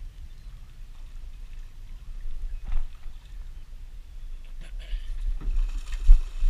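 Low rumble with scattered knocks and bumps on a small fishing boat; the loudest, a sharp thump, comes about six seconds in.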